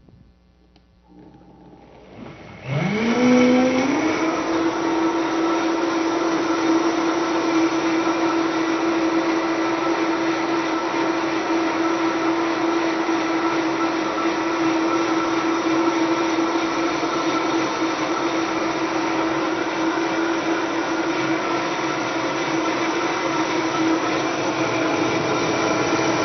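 Countertop blender motor spinning up with a rising whine about two and a half seconds in, then running steadily at full speed, blending the thick millet butter mixture after the gelatin and salt are added.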